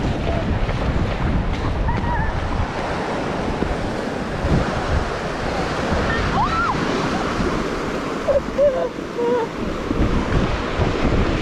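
Surf breaking on a beach, a continuous rushing wash, with wind buffeting the microphone. A few short pitched calls sound over it midway and again later.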